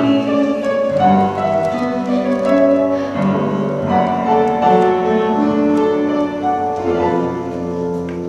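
Instrumental musical-theatre accompaniment led by piano, playing held chords under a slow melody, with no singing. It softens slightly near the end.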